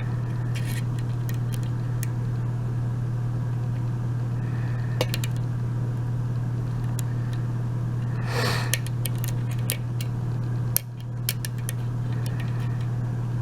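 Small metallic clicks of a lock pick and tension wrench working the pin stacks of a Binco mortise cylinder, with set pins dropping back, a brief scrape about two thirds of the way in and a quick run of clicks after it. Under it runs a steady low hum.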